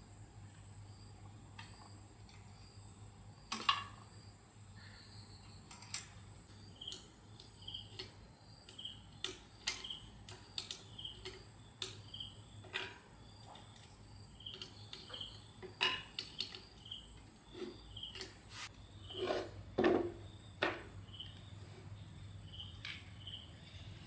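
Scattered clicks and clinks of small metal tools and parts being handled, with a louder knock about four seconds in and a cluster of knocks near the end. A steady high insect trill runs underneath.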